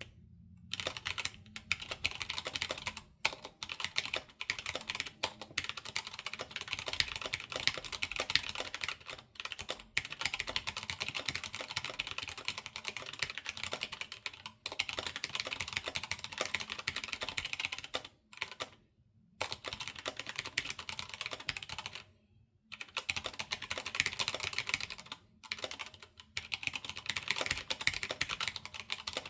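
Typing on a Keychron K12 mechanical keyboard with Gateron Brown switches, in fast runs of keystrokes broken by a few short pauses. The keys ring with a high metallic ping, typical of an unlubed board.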